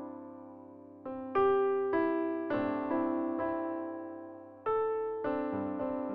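Background music: gentle piano or electric piano playing chords, each struck and then fading.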